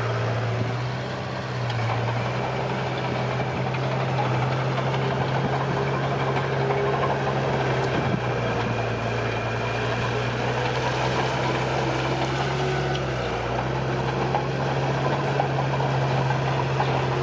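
Bulldozer's diesel engine running steadily with a constant low hum and rattle.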